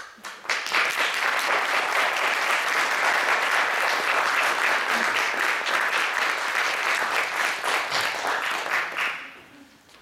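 Audience applauding. The clapping starts about half a second in and dies away after about nine seconds.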